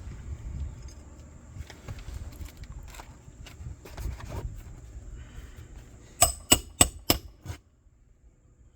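Five quick, sharp hammer blows on a roof snake, driving a new roofing nail in under a shingle, about six seconds in after a stretch of low rumbling handling noise.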